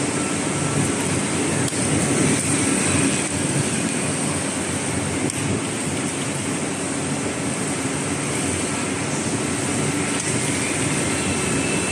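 Steady din of plywood-factory machinery: an even rushing noise with a low hum underneath.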